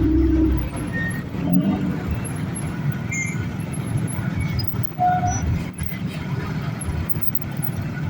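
Roadside traffic noise: a heavy vehicle's engine running steadily, with a few short faint chirps over it.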